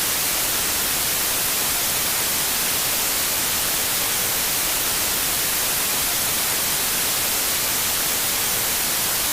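Steady, loud broadcast static: an even white-noise hiss, strongest in the highs, standing in for a lost transmission signal. It cuts off suddenly at the very end.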